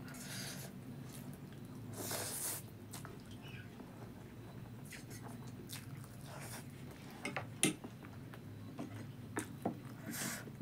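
Chow mein noodles being eaten close to the microphone: slurping and chewing, with two noisy slurps in the first few seconds and a few sharp clicks later on.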